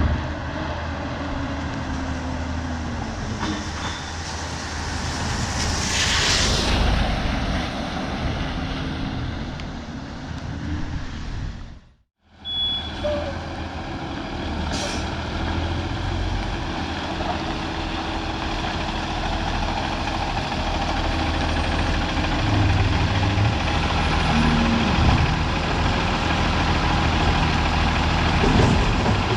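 Garbage truck diesel engine running steadily, with a loud air-brake hiss about six seconds in. The sound cuts out abruptly just before the middle, then the engine picks up again.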